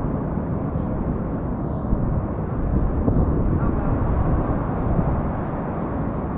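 Steady low rumbling noise on a GoPro Hero 8's microphone, with little sound above the low range and no distinct events.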